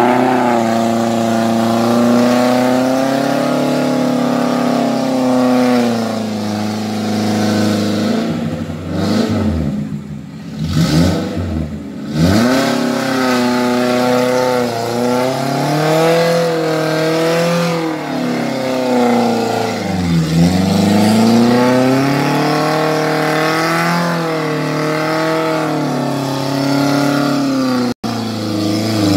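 Suzuki Jimny off-road engine revving hard in a low gear as it pushes through deep mud, the revs rising and falling constantly. About a third of the way in it bogs down, with the revs dropping sharply several times before picking up again.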